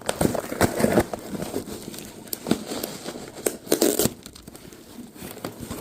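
Packaging crinkling and rustling as a box is unpacked, with irregular sharp crackles and the odd tearing sound.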